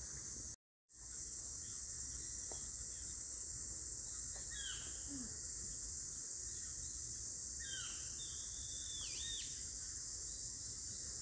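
Outdoor nature ambience: a steady high hiss with a few short falling bird calls, one about a third of the way in and a few more near the end. The sound cuts out completely for a moment just under a second in.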